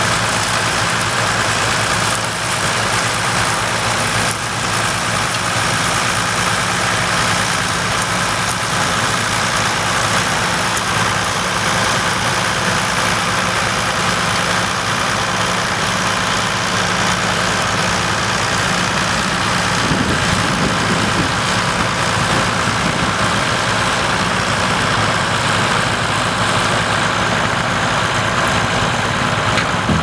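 Ford 7840 tractor's six-cylinder diesel engine running steadily while pulling a plough through stubble, as the tractor drives past.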